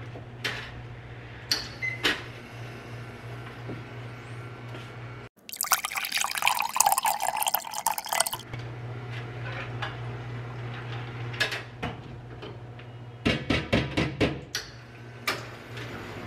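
Americano being made at a two-group FAEMA espresso machine. Scattered clicks and knocks of cup and portafilter sound over a steady low hum. Around the middle comes a loud hissing rush of liquid from the machine lasting about three seconds, and near the end a quick run of rattling clicks.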